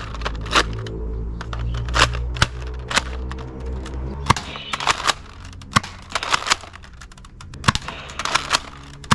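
Toy guns clicking and snapping: irregular sharp clicks and short shot-like cracks, over a low steady hum during the first four seconds.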